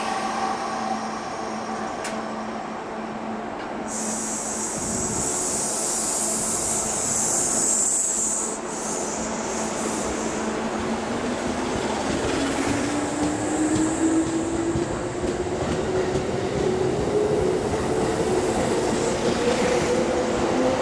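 Kintetsu limited express electric train pulling out of the station. A loud hiss of air comes about four seconds in, then the motors' whine rises steadily in pitch as the train gathers speed, over the rumble of wheels on the rails.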